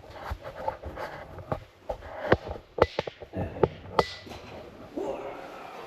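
Irregular footsteps and scuffs with small sharp knocks, the loudest clustered in the middle, in a small enclosed space.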